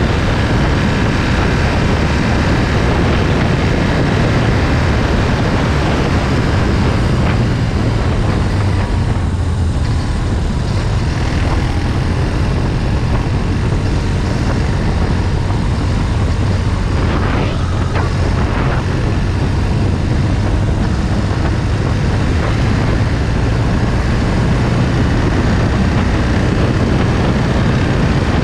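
Motorcycle engine running at road speed, mixed with steady wind and road noise on the bike-mounted camera's microphone.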